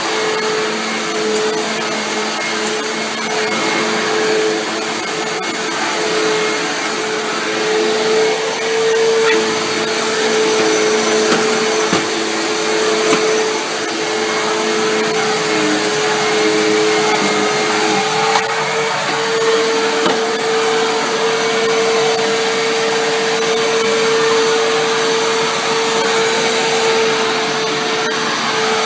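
Corded upright vacuum cleaner running steadily as it is pushed over carpet: an even motor hum with a constant tone over a rushing hiss.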